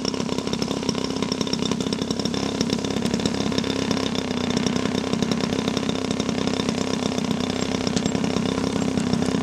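Small combustion engine of a radio-controlled model airplane, running at a high, steady speed with a buzzing, chainsaw-like note.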